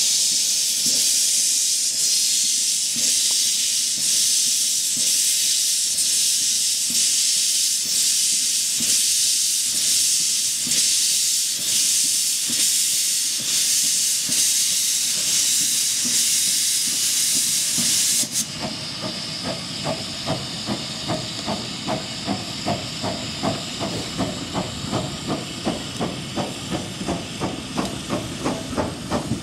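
Miniature-gauge steam locomotive with a loud, steady hiss of escaping steam. About two-thirds of the way through, the sound changes suddenly to the locomotive's exhaust chuffing in a regular beat of about three a second as it works along.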